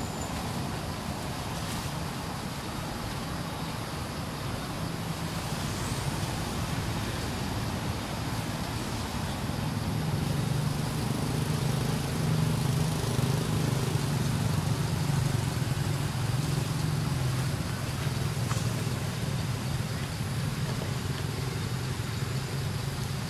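A low engine hum, like a passing motor vehicle, swells over several seconds in the middle and then eases off, over steady outdoor background noise.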